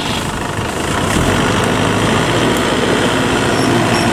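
Kubota DC70 combine harvester's diesel engine running steadily, its low rumble growing a little stronger about a second in.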